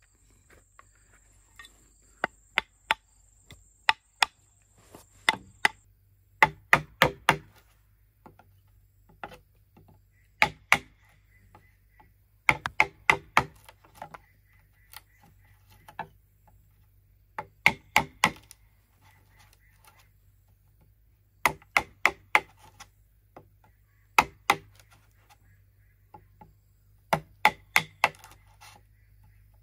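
Bamboo being chopped: sharp strikes in quick bursts of two to five, with pauses of a second or more between bursts.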